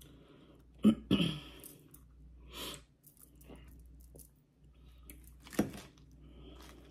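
A person eating a salad: chewing, with a few sharp clicks of cutlery against the plate, the loudest about a second in.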